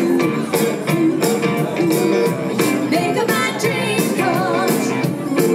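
A soft-rock band playing a song: a steady drum beat under guitar and keyboards, with a woman singing the melody.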